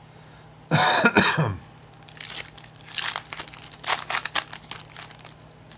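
A brief man's vocal sound, like a cough, about a second in, then a foil Topps Chrome trading-card pack crinkling and tearing open in the hands for about three seconds.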